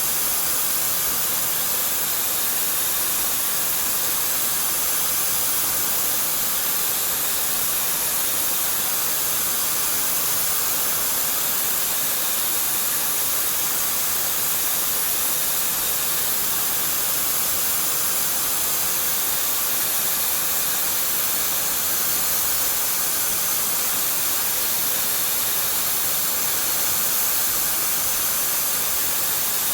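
CNC machine running a cut on a Ford 6.4L diesel piston: a steady, even hiss with a faint steady tone underneath, holding level throughout.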